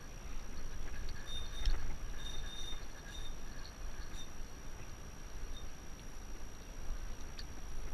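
Low, uneven rumble of wind buffeting the microphone, with a few faint high chirps and ticks in the first few seconds.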